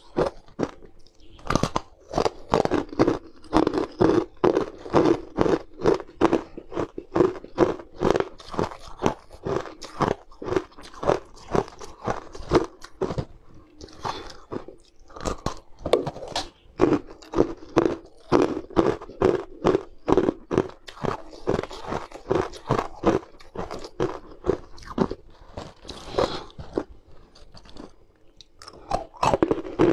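Small coloured ice cubes being bitten and crunched close to the microphone, a fast run of sharp crunches several times a second, with brief pauses twice.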